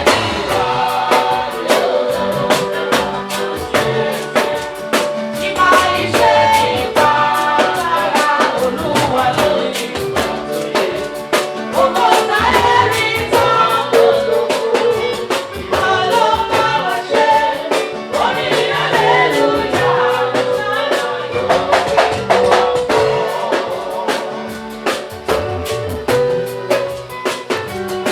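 Live gospel praise music: a band with drum kit, bass and guitar playing a steady beat, with singing over it.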